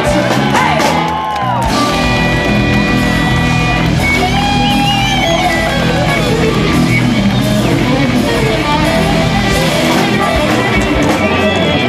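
Live band playing: electric guitar over bass, drums and keyboard, with some singing.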